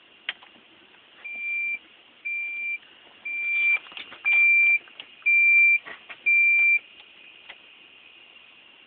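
An electronic beeper sounds six short, steady, high-pitched beeps, about one a second, with a few sharp clicks before and among them.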